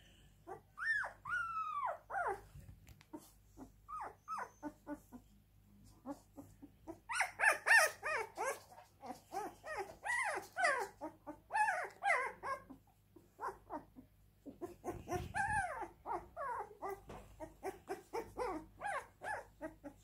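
Siberian husky puppy crying: a long run of short, high, wavering whimpers and squeals, loudest and most rapid from about seven to twelve seconds in, with a second spell of crying later on.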